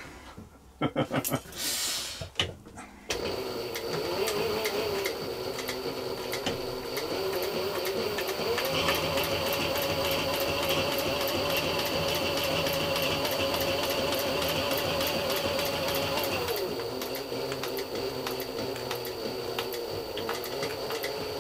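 Juki industrial sewing machine stitching through leather. After a few short handling noises it starts about three seconds in and runs steadily with a fast, even needle beat, speeds up a little from around eight seconds and slows back down for the last few seconds.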